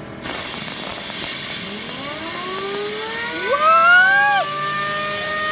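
Compressed air hissing from an air-compressor blow gun aimed at a fidget spinner, starting suddenly a quarter second in. A whine from the spinner rises in pitch as it spins up, loudest around four seconds in, then holds steady under the hiss.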